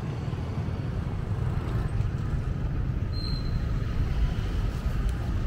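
Wind buffeting the camera's microphone: a continuous, uneven low rush with no clear engine or voice in it.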